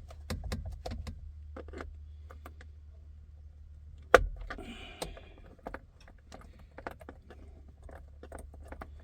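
Small tools and parts clicking and clattering as they are handled during hand work on a car, with one sharp knock about four seconds in, over a low steady hum.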